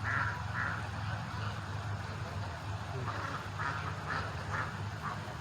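Ducks quacking in short calls, two at the start and a run of about five a little past halfway, over a steady low hum.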